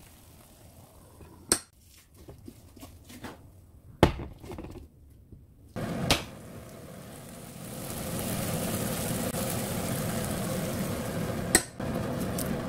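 Happycall double-sided frying pan being shut and handled: a few sharp metal knocks and clatters, the loudest about four seconds in. From about six seconds on, a steady hiss of the omelette sizzling inside the closed pan.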